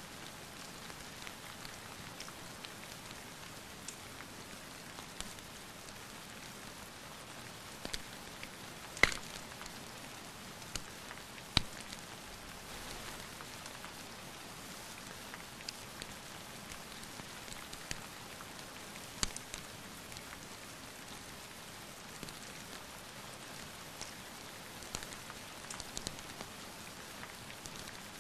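Steady rain hiss with scattered sharp pops and crackles of a wood fire; the loudest pops come about nine and eleven seconds in.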